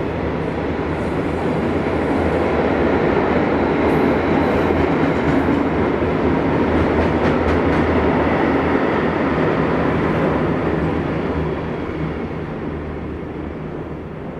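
Class 66 diesel locomotive hauling a freight train past: a steady low engine drone under the rumble of wagons on the rails, growing louder, then fading away near the end.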